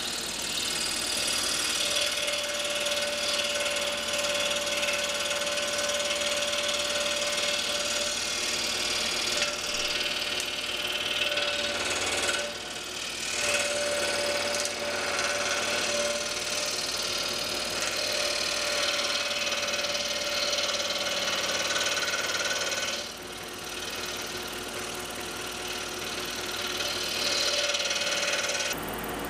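Scroll saw running and cutting through small wooden hinge blanks, in sped-up fast-motion audio: a steady, high mechanical buzz with a steady tone in it. The sound dips briefly about halfway through and again about three-quarters of the way through.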